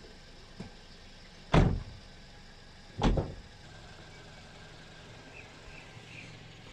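Two car doors of a Toyota saloon slammed shut, about a second and a half apart.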